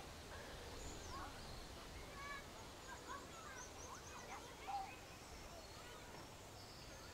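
Nature-ambience birdsong: a cluster of short chirping calls in the first five seconds, with thin high chirps throughout, over a faint steady outdoor background.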